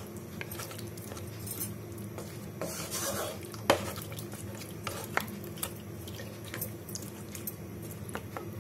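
Wooden spatula stirring chunks of cooked mutton through thick masala in a nonstick kadai, with scraping and irregular light knocks of the spatula against the pan.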